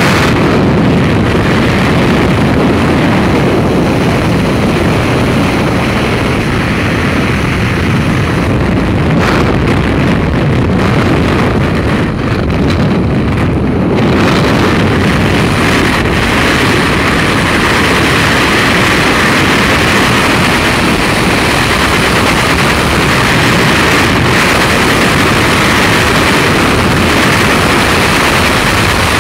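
Loud, steady rush of freefall wind buffeting the camera's microphone as the skydivers fall after leaving the aircraft; the hiss turns brighter about halfway through.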